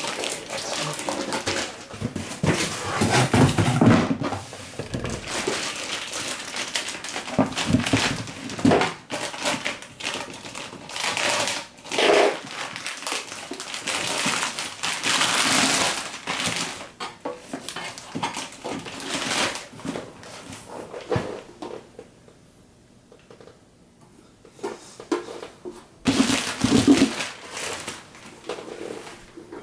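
Plastic wrapping and cardboard packaging rustling and crinkling in irregular bursts as an inverter is lifted from its box and handled, with a quieter spell of a few seconds near the end.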